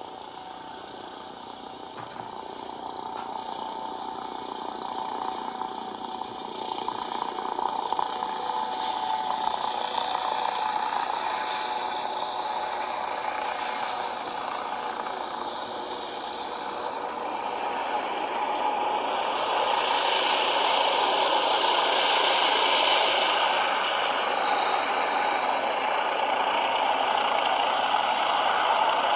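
Helicopter engine and rotor noise growing steadily louder as it comes in low to land close by, with a shifting, sweeping hiss in the upper range.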